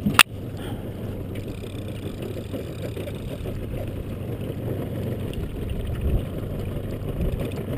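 A small outboard-powered fishing boat on the water, giving a steady low rumble, with one sharp knock just after the start.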